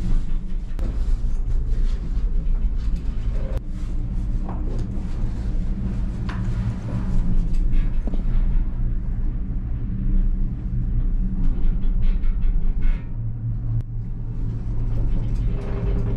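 Steady low rumble and hum inside a moving Doppelmayr gondola cabin as it travels along the haul rope, with a few short clicks and knocks in between.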